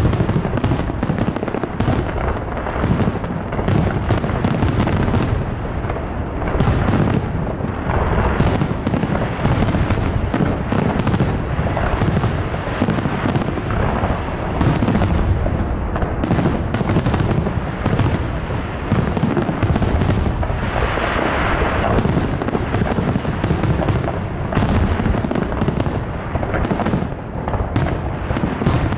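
Aerial fireworks shells bursting in a continuous barrage, several bangs a second over an unbroken low rumble.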